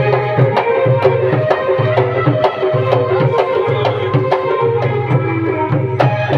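Instrumental break in a qawwali: a dholak drum is played in a steady rhythm over steady held melody notes, with no singing.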